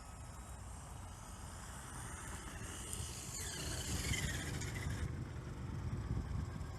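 Traxxas X-Maxx electric RC monster truck driving, its motor whining and falling in pitch about three to four seconds in, over a low rumble.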